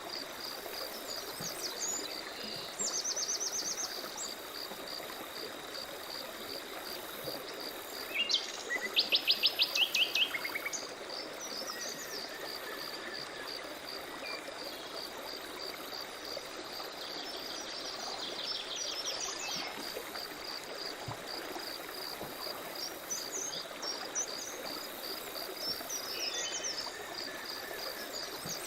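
Forest ambience: an insect chirping steadily in a fast even pulse, over the hiss of a running stream, with birds calling in short phrases of rapid repeated notes, the loudest about nine seconds in.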